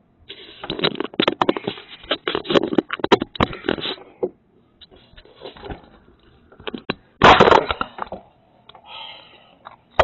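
Handling noise on a doorbell camera's own microphone, with hands and a shirt rubbing and knocking against the camera: a dense run of scrapes and knocks for the first four seconds, then quieter rustling, and a loud burst of scraping a little past the middle.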